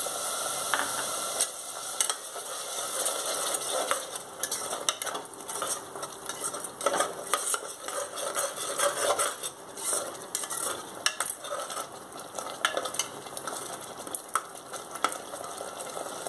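Steel slotted spoon stirring and scraping masala paste and freshly added yogurt as it sizzles in hot ghee in a pressure cooker, with frequent clicks and scrapes of the spoon against the pot.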